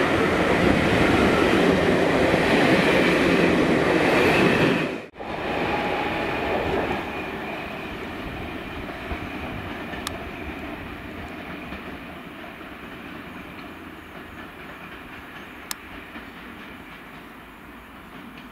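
Passenger coaches of a locomotive-hauled train rolling past close by. About five seconds in, the sound cuts to the train rolling away on curved track, quieter and fading steadily.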